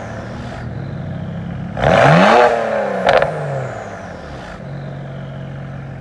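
BMW 335i's turbocharged inline-six idling through its exhaust, blipped once about two seconds in. The revs climb and fall straight back, with one sharp crack from the exhaust as they drop, then it settles back to a steady idle.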